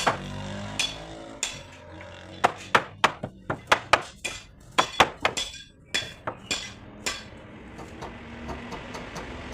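Hammer striking wood in a quick uneven series of sharp taps, about three a second through the middle, fewer at the start and end.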